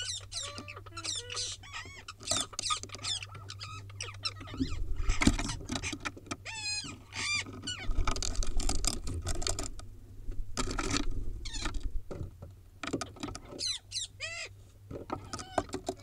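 A flock of ring-necked parakeets calling, with many rapid shrill screeches overlapping. A low rumble with a few thuds runs through the middle.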